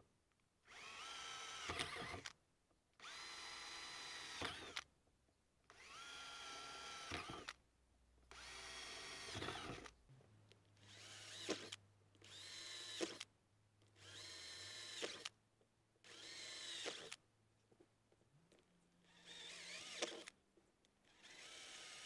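Cordless drill with a twist bit boring holes one after another through the thin rim of a plastic tub: about ten short bursts of motor whine, each a second or so long, with brief pauses between holes.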